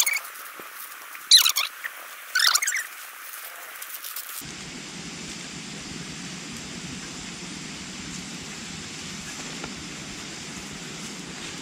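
A plastic snack packet crinkling in three short bursts, then a steady background hiss.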